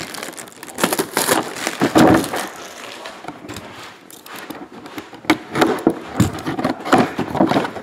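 Plastic shrink wrap crackling and rustling as it is pulled off a cardboard box, followed near the end by a few sharp knocks and scrapes of the cardboard box being handled.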